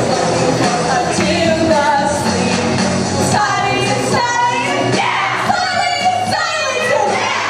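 Pop music with a singer.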